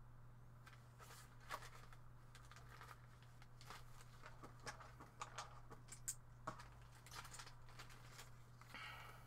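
Faint crinkling of clear plastic bags and light clicks of small plastic miniature parts being handled, over a steady low hum.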